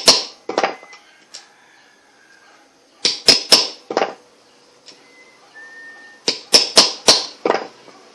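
Small ball-peen hammer striking a small metal jigsaw part held on a wooden board, to work the bearing out or in. The sharp metallic blows come in quick groups: a few at the start, about five around three seconds in, and about five more around six to seven seconds in.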